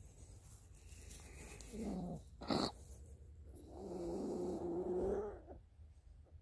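Low animal vocalisations: a short low call about two seconds in, a sharp breathy burst just after it, then a longer, steady low call lasting about a second and a half.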